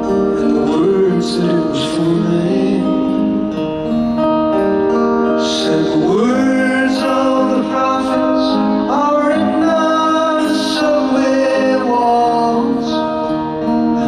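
Live solo acoustic guitar accompanying a man singing slow, sustained lines that slide between notes.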